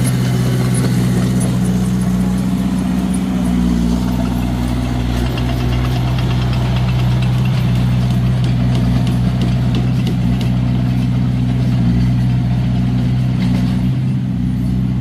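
Komatsu D21A small crawler bulldozer's diesel engine running at a steady low pitch, with faint light clicks over it.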